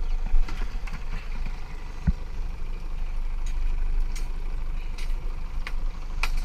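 Boat engine idling steadily, with several sharp knocks and clicks of spearfishing gear handled on the deck.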